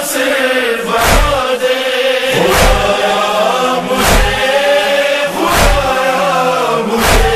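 Voices chanting a held, wordless backing chorus for an Urdu noha, with a deep chest-beating (matam) thump about every second and a half.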